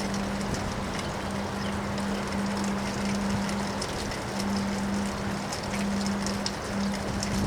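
Wind in a windstorm, a steady rushing noise, with a low hum that keeps cutting out and coming back and faint scattered ticks.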